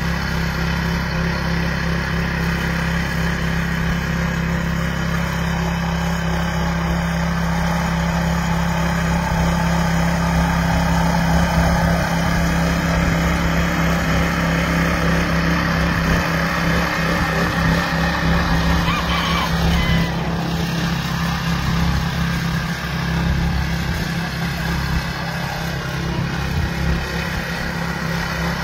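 Rear-tine garden tiller's engine running steadily under load as the tines churn through the soil.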